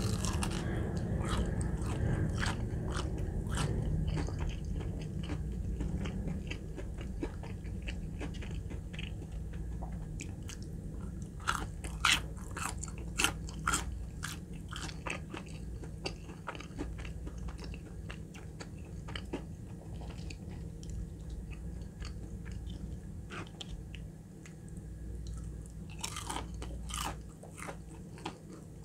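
Close-miked chewing of a crispy breaded fried chicken nugget: many crunches of the batter. The crunches are loudest a bit before halfway, with another run near the end.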